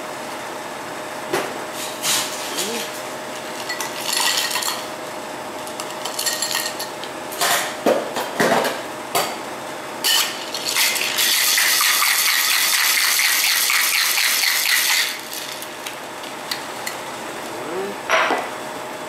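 Cocktail glassware clinking and knocking as a daiquiri is built in a Boston shaker. Then comes about four seconds of steady, hard rattling as the drink is shaken with ice. A couple of knocks follow near the end as the shaker is handled.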